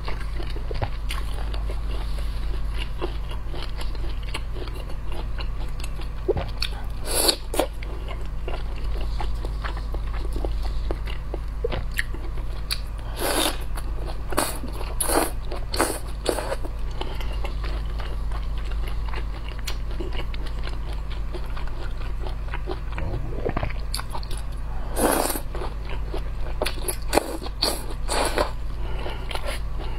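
A person biting and chewing peeled shrimp off a skewer, with wet mouth clicks throughout and several louder bites scattered through.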